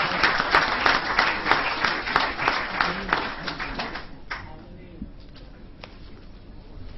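Audience applauding, many hands clapping quickly, dying away about four seconds in to a few scattered claps and low voices.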